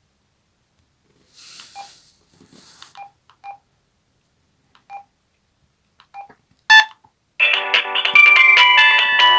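Samsung SGH-M140L mobile phone: a few short, quiet key beeps and a louder beep as its menu is worked, then a ringtone melody starts playing loudly about seven seconds in.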